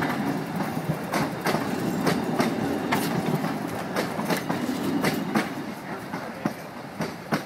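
Narrow-gauge railroad cars rolling slowly past, wheels clicking irregularly over the rail joints over a steady rumble, growing a little fainter toward the end.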